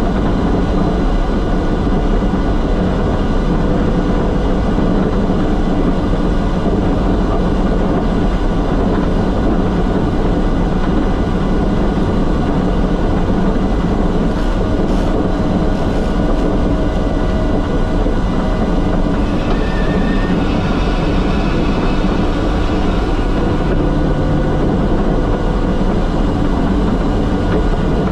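Steady, loud drone of an E-2 Hawkeye's two T56 turboprop engines and propellers heard from inside the cockpit, with a constant low hum. A higher hiss rises briefly about two-thirds of the way through.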